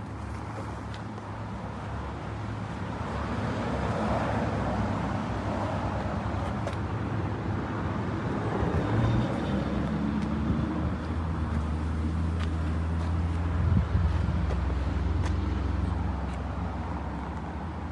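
Road traffic going by: one vehicle passes about four seconds in, then a low engine hum grows louder and fades again near the end.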